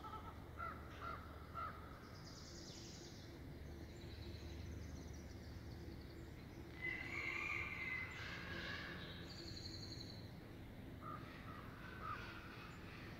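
Birds calling in short, scattered calls, the loudest about seven seconds in, over a steady low rumble.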